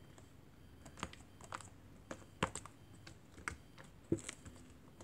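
Fingers poking and pressing purple butter slime, making about eight sharp, sticky clicks and pops at uneven intervals, starting about a second in.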